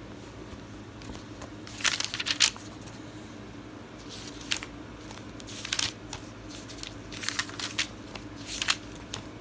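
Pages of a paperback comic book being opened and turned by hand: several short papery swishes and rustles a second or two apart.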